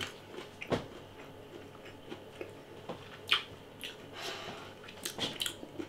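Chewing crispy breadcrumb-coated chicken strips: soft mouth sounds with a few sharp clicks and a breath about four seconds in.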